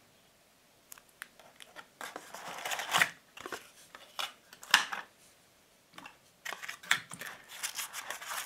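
Rustling and light clicks of packaging and paper inserts being handled, coming in irregular bursts with two short pauses.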